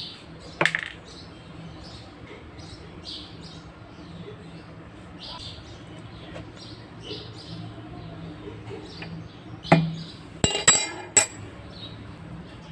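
Sharp clinks of hard objects knocking together: one about a second in, then a tight cluster of three or four louder ones near the end. Faint, repeated chirping of small birds runs underneath.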